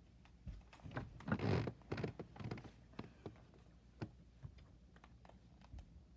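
Bedding rustling and a few soft thumps as a person sits up from under a heavy comforter, loudest about a second and a half in. Then a few light, separate taps and clicks.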